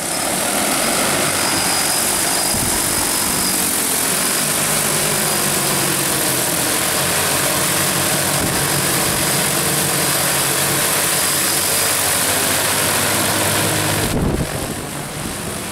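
DJI T40 agricultural drone's rotors running at full power on takeoff with a load of fertilizer: a loud, powerful whirring with a low hum that shifts a little in pitch. It drops off sharply about a second before the end.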